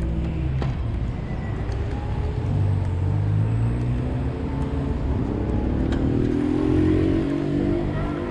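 Street traffic heard from a moving bicycle: a low, steady rumble of vehicle engines, with one engine rising in pitch as it speeds up about five seconds in.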